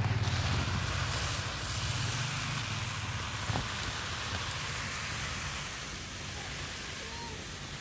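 Uncooked rice grains being poured and stirred on a cloth mat: a steady rustling hiss.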